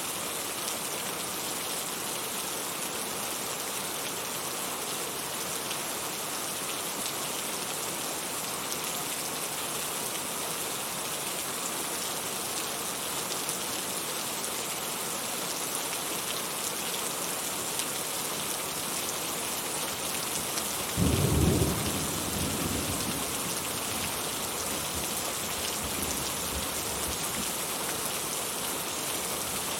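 Heavy rain falling steadily in a dense, even hiss. About two-thirds of the way through comes a brief, loud low rumble that fades over a second or two.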